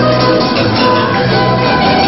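Loud music playing steadily, with instruments holding sustained notes.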